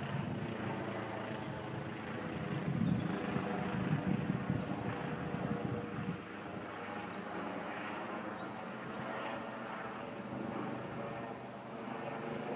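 Police helicopter flying high overhead: a steady distant rotor chop with engine drone, the low pulsing stronger at first and easing after about six seconds.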